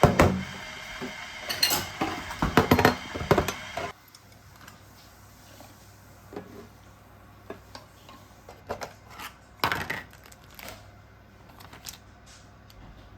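Kitchenware clinking and knocking as it is handled. The clatter is dense over a steady background noise for the first four seconds, which cuts off abruptly, then thins to scattered, quieter knocks.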